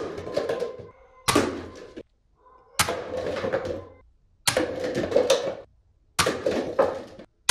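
A toy foam-dart gun fired about five times, roughly one shot every second and a half. Each sharp pop is followed by a short rattle of paper cups being knocked over.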